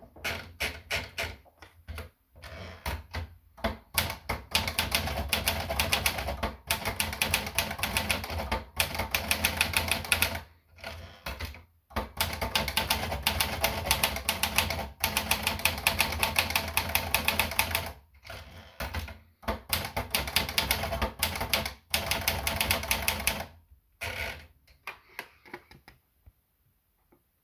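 Olivetti Valentine manual portable typewriter being typed on: quick runs of sharp key strikes broken by short pauses.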